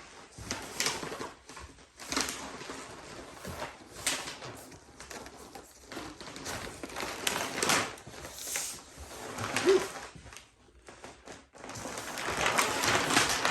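Irregular rustling and scraping as heavy sides of skirting leather and their wrapping are handled and shifted on a worktable, in short bursts with brief pauses.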